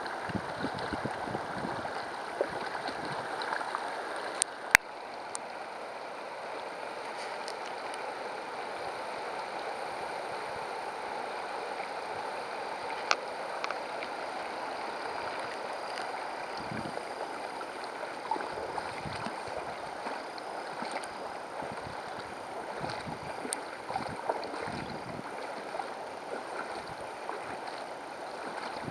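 Shallow river riffle babbling steadily as the current churns over stones, stirring air into the water. A sharp click about five seconds in, and a fainter one near the middle.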